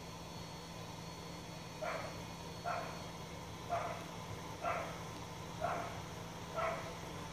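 A dog barking in short yaps, about one a second, six in all, over a steady low hum.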